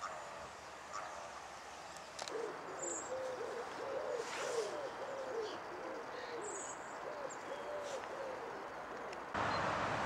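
A series of short, low hooting notes, each rising and falling, repeated about two to three times a second from a couple of seconds in until near the end. A few faint high chirps sound above them. Near the end the sound cuts to a louder steady hiss of background noise.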